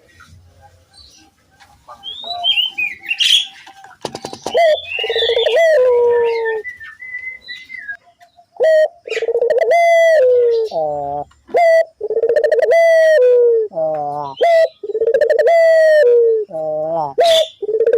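Local puter dove cooing over and over in an active, full-voiced bout, each coo sliding down in pitch. Thin higher chirps and calls come in the first few seconds.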